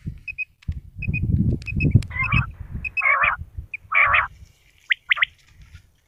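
Quail calling in short high pips, repeated in little groups, over rustling and knocking in the first half. Three harsher, noisier calls come near the middle, and two sharp chirps follow about five seconds in.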